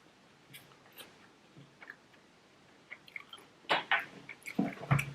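Close-up eating sounds: chewing and short wet mouth clicks, sparse at first, then a louder run of them from near the four-second mark.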